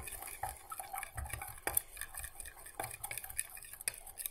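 Wooden stick stirring melted soft plastic in a glass measuring jug, clicking and scraping irregularly against the glass several times a second.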